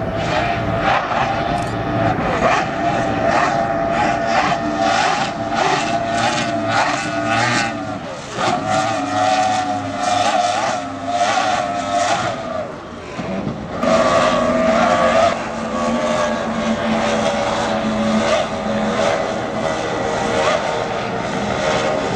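Racing powerboat engines running at high speed, the pitch wavering as the boat skims the water, with a dense rapid crackle and the level dipping twice midway.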